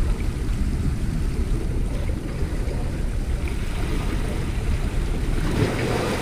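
Steady low rumble of sea and wind on the microphone, with waves washing against shoreline rocks. A splash at the water's edge about five and a half seconds in, as the hooked fish is lifted out.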